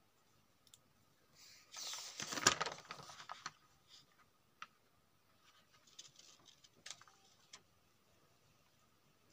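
A handwritten paper notebook page being turned and handled: a rustle about two seconds in, then a few faint clicks and small rustles.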